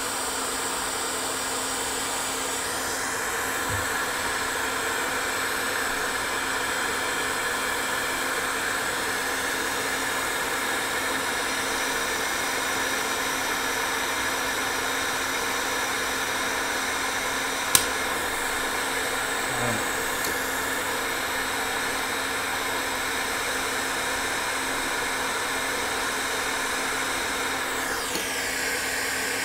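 Hot air rework station blowing steadily while desoldering a small electrolytic capacitor from a circuit board: an even airy hiss with a low hum from its blower. A single sharp pop about two-thirds of the way through.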